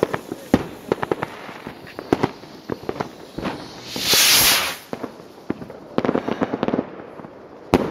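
Firecrackers going off in a scattered run of sharp cracks, with a loud hissing rush lasting under a second about four seconds in.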